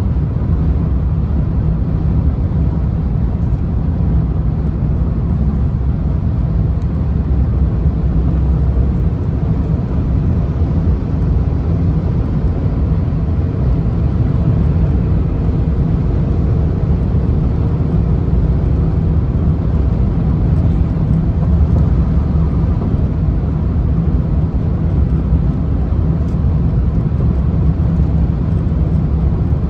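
Car driving on the highway: a steady low rumble of tyre and engine noise that holds even throughout.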